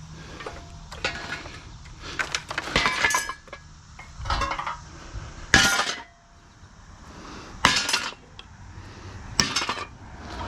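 Pieces of scrap metal being tossed onto a scrap pile, clanking and clattering about six times, some with a short metallic ring; the loudest clank comes a little past halfway.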